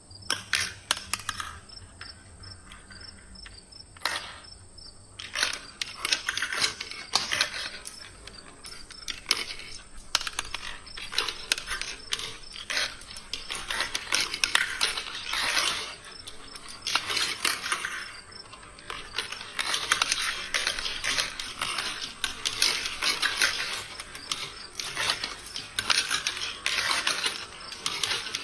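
Marbles rolling and clattering down a plastic marble-run rail track: a few separate clicks at first, then dense, nearly continuous rattling and clicking from about five seconds in, rising and falling in waves. A faint steady high-pitched tone sits underneath.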